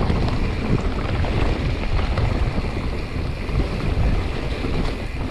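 Wind rushing over the action camera's microphone, with tyre rumble and small rattles from a full-suspension 29er mountain bike rolling fast down a dirt singletrack.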